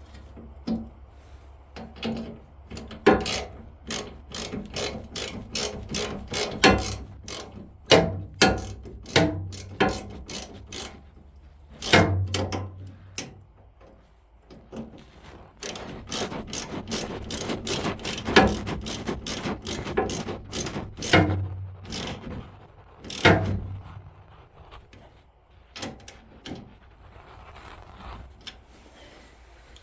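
Hand tool work on a snowblower's auger shaft: runs of sharp metal clicks and clinks in uneven bursts, with short pauses, as a ratchet wrench fastens the new shear bolt.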